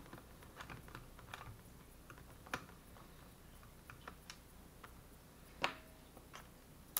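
Small screwdriver turning out screws in a laptop: faint, scattered light clicks and ticks of metal and plastic, with a few sharper clicks, the loudest about five and a half seconds in.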